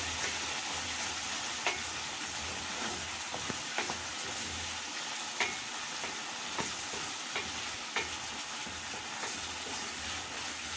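Onion, tomato and capsicum stew base sizzling in a pan while a spoon stirs it, the spoon knocking sharply against the pan about once a second.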